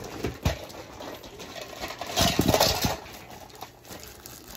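Small plastic toy wrestling weapons poured out of a bag, with a few clicks near the start and a burst of clattering about two seconds in.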